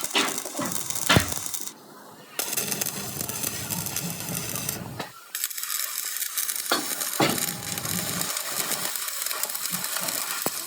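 Metalworking noise from steel bucket fabrication: sharp metal knocks and clanks, with a steady hiss that stops briefly near the middle.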